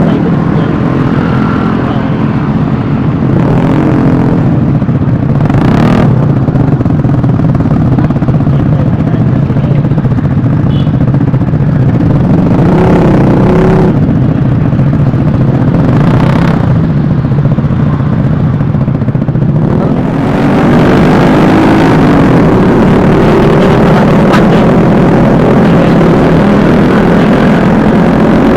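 Vespa S 125 scooter on the move, its single-cylinder engine running steadily under heavy wind noise on the microphone. The wind noise grows louder and hissier about twenty seconds in.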